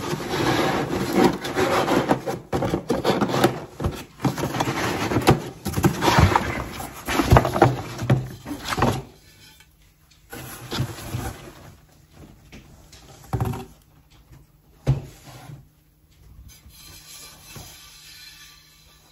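Molded paper-pulp packing trays and a cardboard box rustling and scraping for about nine seconds as an unglazed clay pan is worked free of its packaging. After that come a few separate knocks and taps as the pan and packing are handled.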